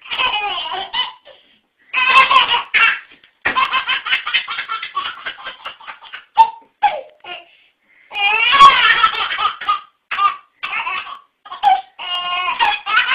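A baby belly-laughing hard in repeated fits: runs of quick high-pitched giggles, each fit a second or a few seconds long, broken by brief pauses for breath.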